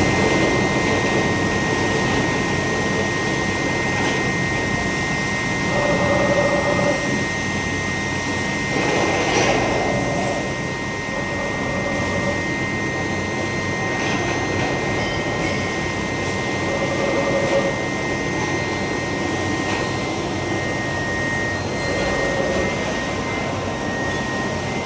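Furnace running with a steady rushing roar and a constant high whine.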